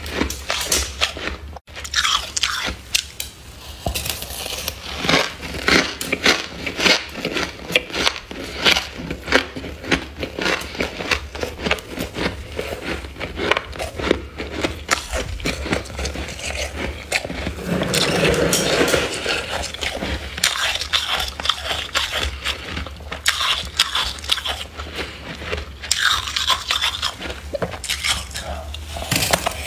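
Freezer frost being bitten and chewed: many short crunches in quick succession, with a denser stretch of crunching a little past the middle.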